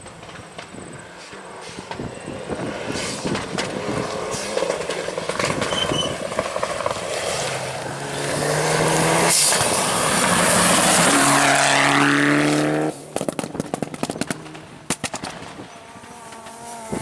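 Rally car on a gravel forest stage, its engine revving hard and climbing in pitch through the gears as it comes closer, loudest for a few seconds past the middle. The engine sound drops away suddenly, leaving scattered clicks and crackles like gravel being thrown.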